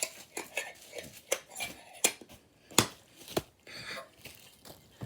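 Irregular clicks, taps and short crinkles of toy packaging being handled, a dozen or so small sharp sounds spread unevenly.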